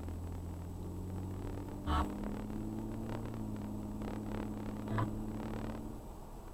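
Hyundai Genesis Coupe engine idling with a steady low hum, with two brief taps, about two and five seconds in.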